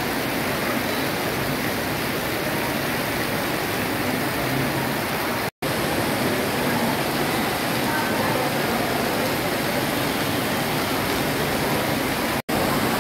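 Heavy rain pouring onto paved ground, a loud, even hiss. It cuts out for an instant twice, about halfway through and near the end.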